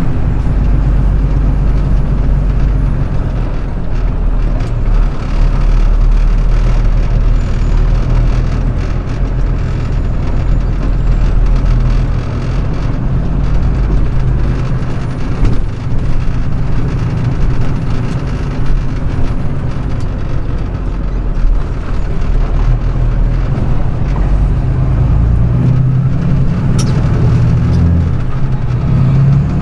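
Straight truck's diesel engine running as the truck drives, heard from inside the cab: a steady low rumble that picks up near the end as it accelerates.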